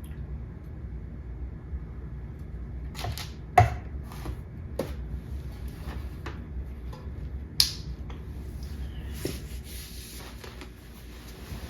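Scattered light knocks and clicks of objects being handled, over a steady low hum. The loudest knock comes about three and a half seconds in, and a sharp click just before eight seconds.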